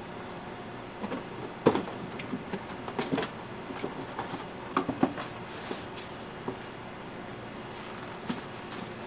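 Corrugated cardboard being handled and folded while a display stand is put together: irregular knocks, taps and scrapes, most of them in the first six seconds and one more near the end, over a steady background hum.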